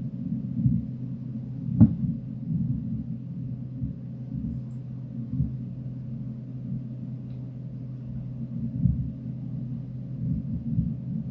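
Martian wind recorded by the SuperCam microphone on NASA's Perseverance rover: a low, gusty rumble with a steady low hum beneath it. There is one short knock about two seconds in.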